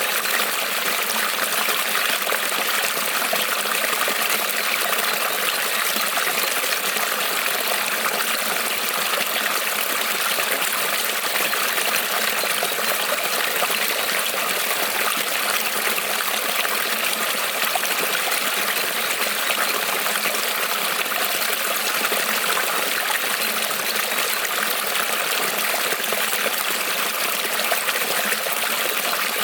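Creek water rippling and trickling over stones in a steady, unbroken rush.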